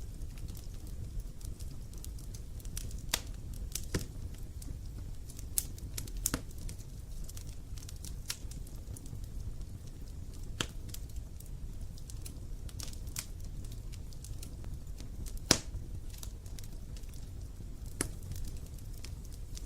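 Wood fire burning with a low steady rumble and irregular sharp crackles and pops, one louder pop about three-quarters of the way through.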